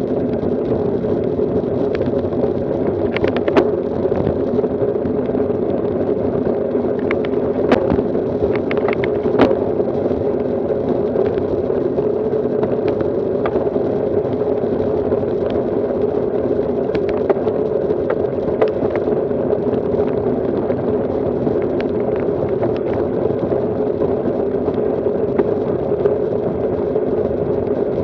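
Road bicycle rolling at speed on asphalt: a steady rush of wind over the microphone mixed with tyre noise, with a few sharp clicks now and then.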